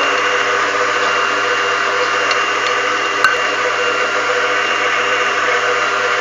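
Electric mixer running steadily with a constant motor hum, beating cake batter as flour is added. A single light click about three seconds in.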